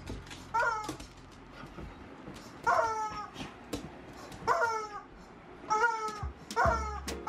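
Rubber chicken toy squeezed again and again, giving about five short squawks, each falling in pitch.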